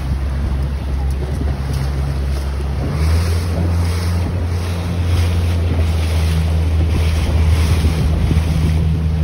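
Outboard motor of an inflatable chase boat running steadily, its pitch stepping up and getting stronger about three seconds in, with wind buffeting the microphone and water rushing past the hull.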